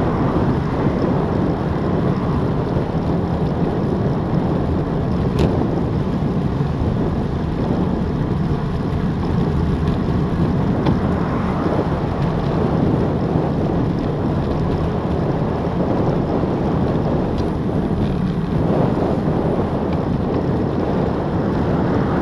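Steady wind rushing over a Garmin VIRB action camera's microphone as a bike coasts downhill at about 23–25 mph, with one sharp click about five seconds in.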